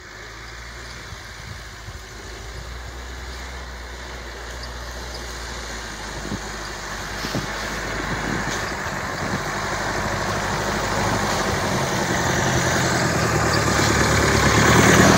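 Jeep engine running as the jeep pushes through deep snow, growing steadily louder as it comes closer, loudest near the end.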